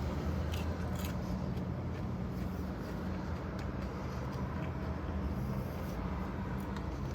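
Steady low hum of an idling car engine heard from inside the cabin, with a few faint clicks.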